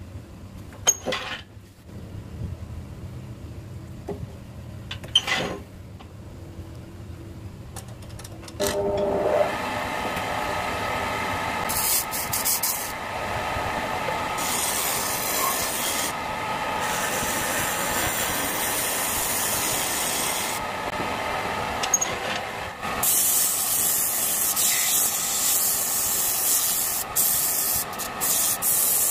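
A hand tool rubbing against a wooden bowl spinning on a homemade wood lathe. The first part is quieter, with a low hum and a couple of knocks. From about nine seconds in the tool scrapes the wood with a steady, loud hissing rasp, easing off briefly a few times.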